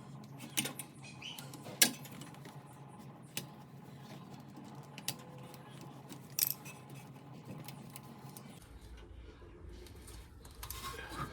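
Scattered light metallic clicks and taps from hand tools and metal parts being handled while working at a tie rod boot clamp, about five sharp ones, the loudest just under two seconds in. A faint low hum comes in near the end.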